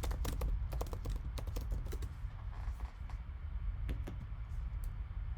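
A quick run of light clicks and taps from hands working at a desk, bunched in the first two seconds and then only now and then, over a low steady hum.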